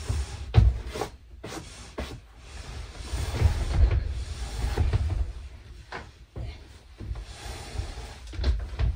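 A bulky folding bed being shoved up onto a wooden loft floor from a ladder: irregular thumps and bumps with scraping and rubbing as it slides over the edge.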